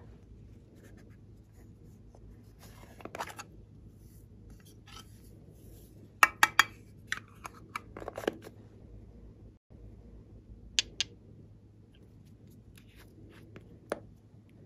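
Small plastic containers being squeezed, tapped and opened by hand: scattered sharp clicks and crinkly crackles. The clicks come in a dense cluster about halfway through, with single clicks later and one near the end.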